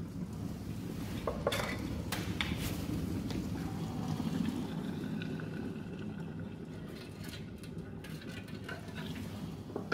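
Glass electric kettle boiling with a low rumble of bubbles, with a few clicks and knocks about one to two and a half seconds in. Near the end, hot water is poured from the kettle into an empty metal can.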